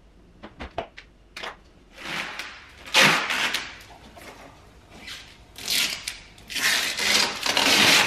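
A few light clicks and knocks, then repeated rustling and crinkling of clear protective plastic film being peeled off a new stainless-steel fridge's doors, in several bursts of a second or two.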